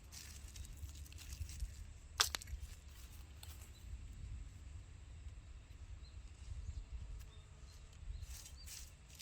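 Quiet outdoor ambience: a steady low rumble with scattered small clicks and rustles, and one sharper click a little over two seconds in.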